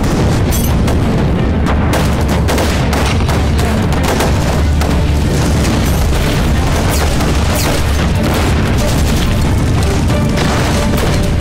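War-drama battle sound effects: a continuous din of explosion booms with rapid gunfire cracking through it, under a dramatic music score.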